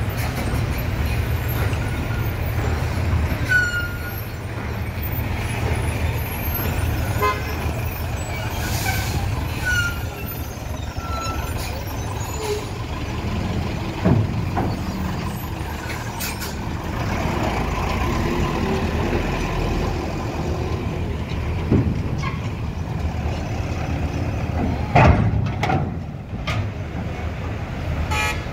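Truck and minivan engines running low as they drive up off a ferry ramp, with a few short horn toots in the first ten seconds and several loud knocks near the end.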